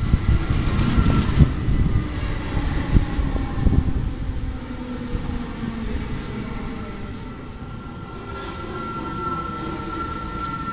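NS SGMm Sprinter electric multiple unit arriving at a platform and passing close by: rumble and clattering wheel knocks over the first few seconds, then a quieter run with a steady high whine that grows near the end while lower tones slide down in pitch as the train slows.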